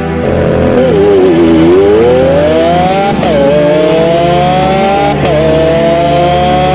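Sports-car engine accelerating hard. Its pitch climbs steadily and drops sharply at two gear changes, about three and five seconds in, over background music.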